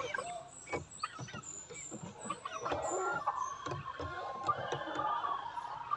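Chickens clucking and calling in short, scattered notes, with a longer drawn-out call in the second half.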